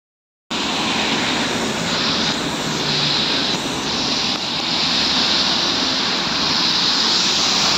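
Street traffic on a wet, slushy road: a steady hiss of tyres on slush from passing cars and a truck as a BKM 321 trolleybus approaches. It starts about half a second in.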